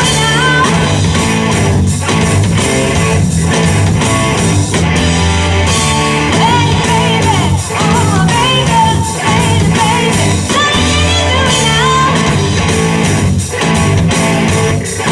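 Live rock band playing: a woman sings over two electric guitars, bass guitar and drums.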